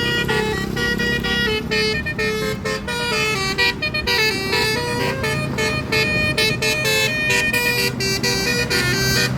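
Bus 'telolet' musical air horn playing a fast tune of stepped notes, over a running bus engine.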